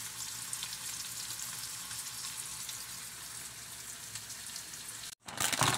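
Steady sizzling hiss of thin steaks frying in oil in a pan. Near the end, after a brief dropout, there is a short loud burst of handling noise.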